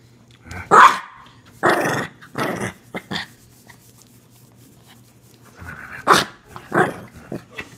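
Small dog growling and giving short, sharp barks in bursts while it nips at a hand. A quiet spell comes in the middle, and two more sharp yaps come near the end.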